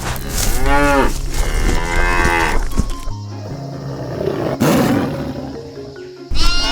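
Cow mooing, two long calls that rise and fall in pitch, over background music.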